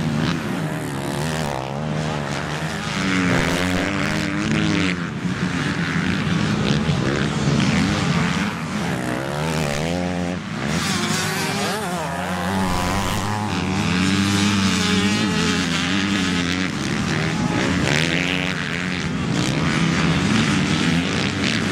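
Motocross dirt bikes racing on the track, their engines revving up and down as the riders work the throttle and shift, with several engine notes overlapping.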